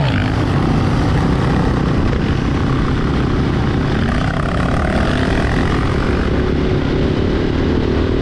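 Dirt bike engine running under way, with heavy wind rumble buffeting the microphone. The engine's pitch climbs slowly in the second half.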